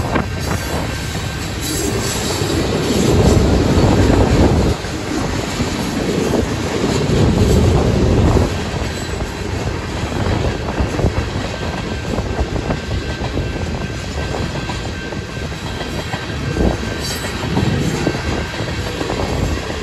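Freight train tank cars rolling past, their wheels clicking over the rail joints. Strong gusts of wind buffet the microphone in heavy low swells.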